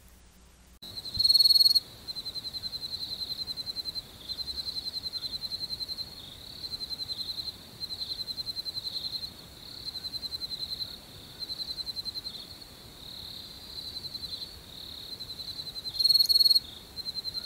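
Cricket trilling: a high, fast-pulsed trill in phrases of one to two seconds separated by short breaks, starting about a second in, louder for a moment right at its start and again near the end.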